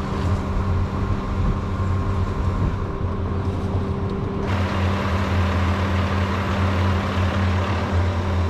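Crane truck's engine running steadily at a constant speed, with a louder rushing hiss joining it about four and a half seconds in.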